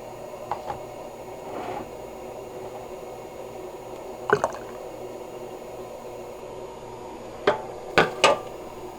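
A few short clinks and knocks of a mug and kitchenware being handled, the loudest cluster near the end, over a low steady hum.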